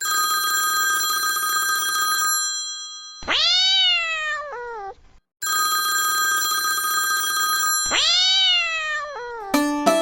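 Phone ringtone made of a steady electronic ring followed by a cat meowing, a long meow and then a short one, and the pair plays twice. Near the end a plucked-string melody begins.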